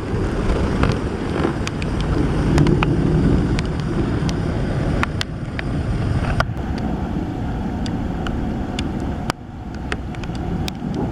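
Wind rumbling against the microphone, with scattered sharp ticks throughout.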